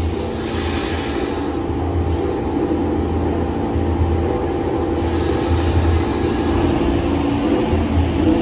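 New York City subway train running in the station, with a steady mechanical hum of held tones and a level that rises slightly as it goes.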